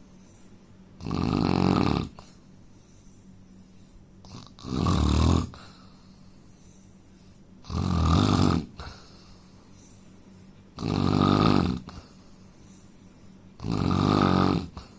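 A man snoring in his sleep: five loud snores, evenly spaced about three seconds apart, each lasting about a second.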